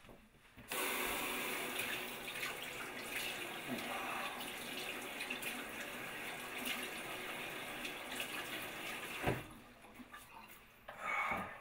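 Water running from a tap into a sink. It is turned on abruptly about a second in, runs steadily, and stops with a knock about nine seconds in.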